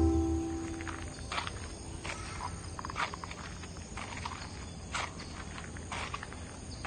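Rural outdoor ambience: scattered short chirps and clicks over a low steady hum, with guitar music fading out at the very start.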